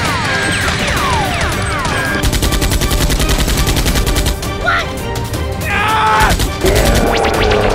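Rapid automatic gunfire sound effects, a fast run of shots repeating without a break, over background music.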